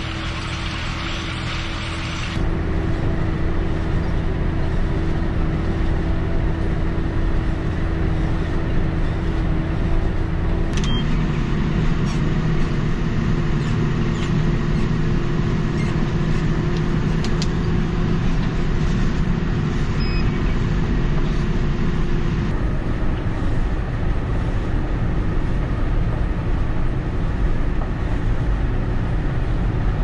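JCB Fastrac tractor engine running steadily under load while pulling a set of harrows. The sound shifts a couple of seconds in and again about eleven seconds in, as it is heard from different positions on the tractor.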